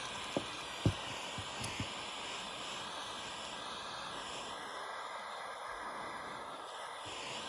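Handheld gas torch burning with a steady hiss, its flame aimed at 3D-printed plastic to melt it. A few light knocks of the plastic model being handled come in the first two seconds.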